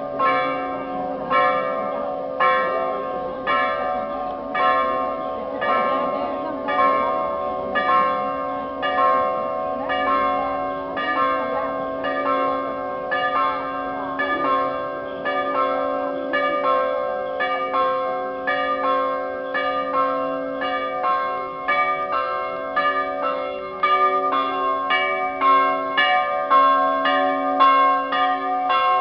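Orthodox church bells ringing: a steady run of strikes on several bells of different pitch, about one to two a second, with the strikes coming faster and louder over the last few seconds.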